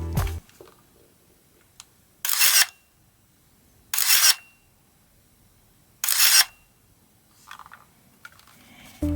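Pentax SLR camera's mirror and shutter firing three times, each actuation a short, loud clack about two seconds apart, with a few faint handling clicks between them.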